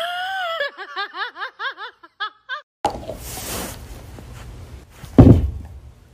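A high-pitched voice gives one long falling note, then a quick run of short rising yips, about five a second. Then comes a single loud thump as a dog's chew bone is kicked over onto the floor.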